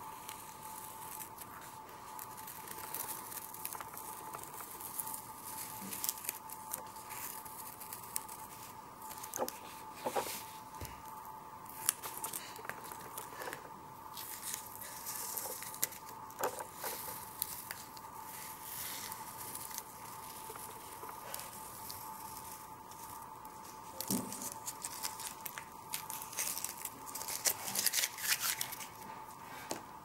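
Tape being peeled off the edges of paper in several pulls, a crackly ripping rasp that comes in bursts, busiest in the last few seconds. A steady faint high tone hums underneath.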